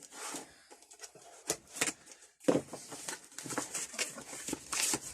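Parcel packaging rustling and crinkling as it is unwrapped, with a few light clicks and knocks.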